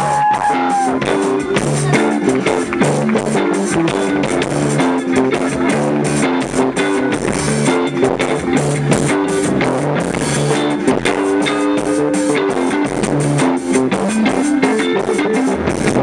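Live rock band playing: electric guitar and bass over a drum kit keeping a steady beat. Recorded close to the PA speakers on a low-quality camera microphone, so the sound comes out loud and poor.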